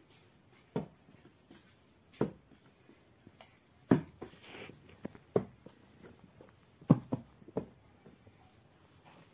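Balls of bread dough being rounded by hand and set down on a flour-dusted cloth: a series of soft, dull thumps, roughly one every second or so, with light rubbing of hands and flour between them.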